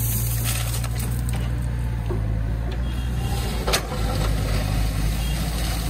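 Diesel engine of a construction machine idling steadily at a low, even pitch, with a single sharp knock a little over halfway through.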